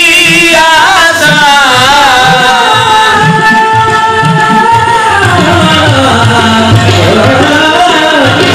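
Qawwali music: a male voice sings long, wavering, ornamented held notes over a steady drum beat.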